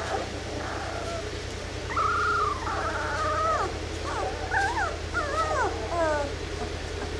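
Two-week-old Labrador retriever puppies whining and whimpering: a string of short, high, rising-and-falling cries from about two seconds in until about six seconds, over a steady low hum.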